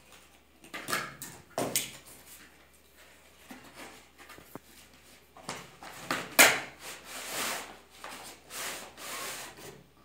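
Cardboard tripod box being opened and handled: irregular scraping and rubbing of cardboard, the loudest about six seconds in, as the tripod in its fabric carry bag is slid out of the box.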